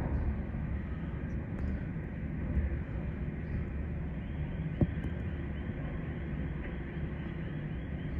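Hurricane wind buffeting the microphone as a steady low rumble, with one sharp knock a little under five seconds in.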